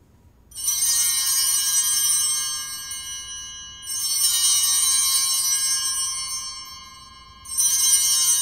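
Altar bells rung three times during the elevation of the consecrated host at Mass. Each ring is a cluster of bright, high tones that starts suddenly and rings out before the next one: the first about half a second in, the second about four seconds in, the third near the end.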